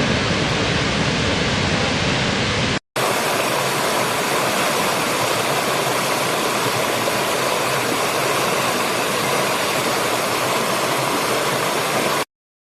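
Steady rush of a waterfall, cut off abruptly about three seconds in. After a brief silence it gives way to the hissier rush of another waterfall, which stops suddenly near the end.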